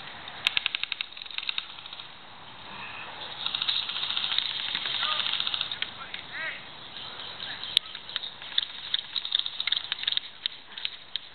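Airsoft guns firing: a rapid burst of about a second near the start, then scattered single shots through the second half.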